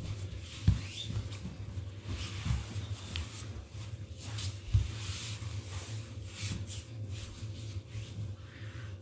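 Bodies and clothing rubbing and shuffling on a foam floor mat as people reposition, with a few soft thumps, over a steady low hum.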